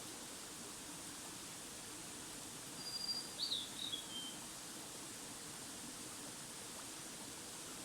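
A wild bird calls once about three seconds in: a short phrase of high whistled notes, the first held and the later ones falling in pitch, over a steady outdoor hiss.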